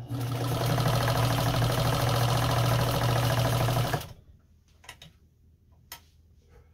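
Nelco zigzag sewing machine running at a steady speed and stitching a short straight stitch through denim: a motor hum under a fast, even clatter from the needle mechanism. It stops abruptly about four seconds in, followed by a few light clicks.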